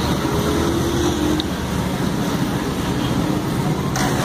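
Steady street traffic noise, with a short click near the end.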